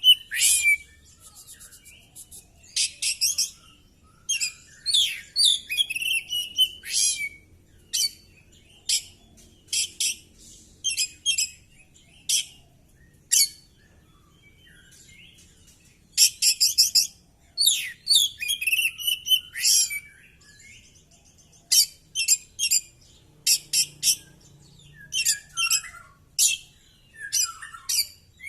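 Oriental magpie-robin (kacer) singing in its fighting mood, running through its repertoire of phrases. Short, loud bursts of varied song come one after another with brief pauses, mixing falling whistles with rapid, stuttering trills.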